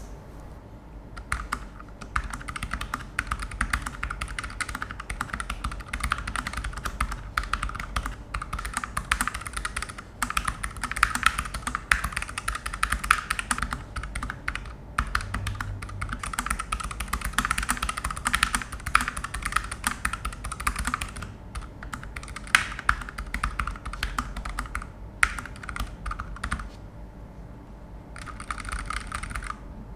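Typing on a Keychron K3 v2 low-profile mechanical keyboard with optical black switches: a fast, continuous clatter of keystrokes, with a brief pause near the end.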